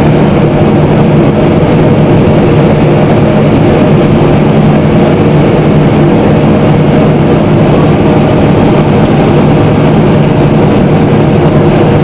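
Claas Lexion combine harvester running steadily and loudly, a constant engine drone over the noise of its machinery, while it unloads shelled corn through its unloading auger into a grain cart running alongside.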